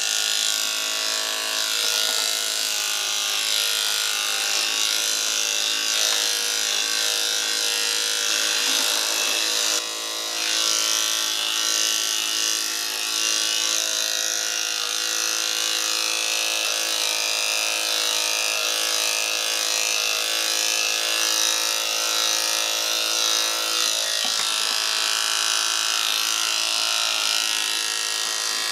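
Electric pet grooming clippers running with a steady buzz while trimming a dog's curly coat, briefly dipping in level about ten seconds in.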